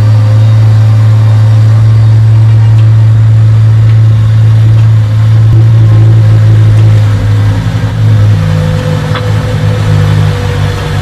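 Honda Integra DC5's four-cylinder engine, breathing through an Injen cold air intake, running loudly at steady revs. About seven seconds in the note begins to waver, and it changes about eight seconds in.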